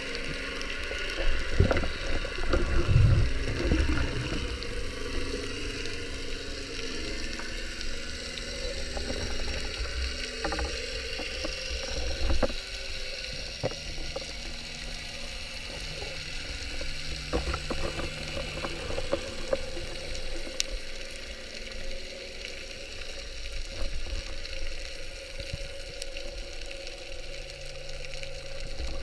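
Underwater sea ambience picked up by a camera in its housing: a steady fizzing crackle, with louder low bumps and knocks of water movement between about one and four seconds in.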